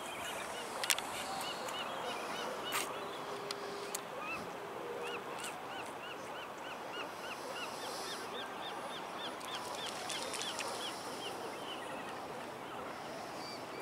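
Water birds calling over the harbor: a steady chatter of honking calls, with runs of short, high, repeated chirps from another bird. Two sharp clicks sound in the first few seconds.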